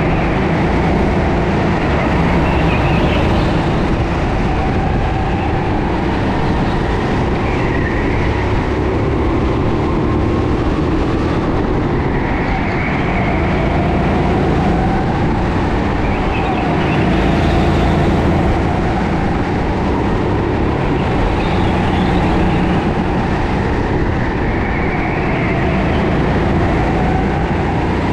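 Sodi SR4 rental kart's 13 hp four-stroke engine running at racing speed, heard onboard, its pitch rising and falling every few seconds as the kart accelerates out of corners and lifts into the next.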